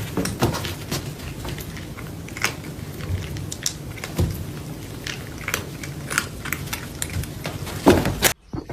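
Close-up chewing and crunching, with many irregular sharp clicks.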